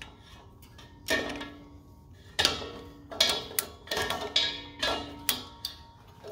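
Sharp metallic clicks and knocks, about ten spread irregularly over several seconds, each ringing briefly. They come from a grill's propane regulator coupling being worked and turned by hand onto the tank valve.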